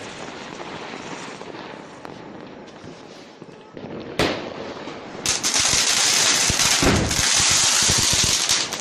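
Fireworks going off: a single sharp bang about four seconds in. About a second later comes a loud hiss full of crackling that lasts about three seconds, with a deeper thump near its middle, before it cuts off near the end.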